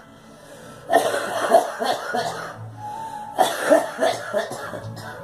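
A girl coughing in two fits of several coughs each, the first about a second in and the second about three and a half seconds in.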